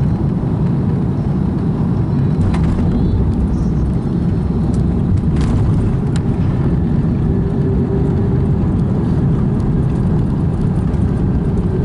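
Airbus A330 airliner during landing: a steady, loud low rumble of engine and airflow noise, with a faint steady hum joining about halfway through.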